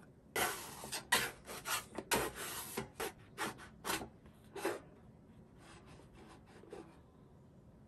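Spatula scraping across the griddle under a pancake to loosen it for flipping: a series of short rasping strokes, about ten in the first four and a half seconds, then a few fainter ones before it stops.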